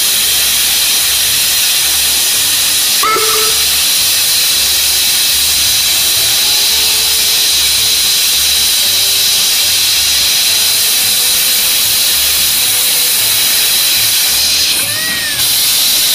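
Small steam tank locomotive venting steam from its open cylinder drain cocks: a loud, steady hiss. Drain cocks are opened to blow condensed water out of the cylinders as the engine gets under way.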